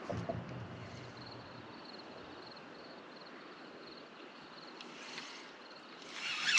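Night outdoor ambience: crickets chirping steadily over a constant wash of water noise. There is a brief low thump at the start, and a louder rush of noise builds near the end.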